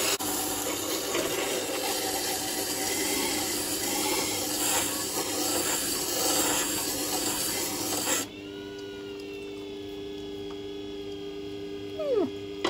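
Steel edge of a 10-inch Victorinox butcher knife grinding against the wet stone of a Scheppach Tiger 3000VS, dressed to a rough 220 grit, as a steady rasp over the motor's hum. About eight seconds in the grinding stops, and only the grinder's hum carries on.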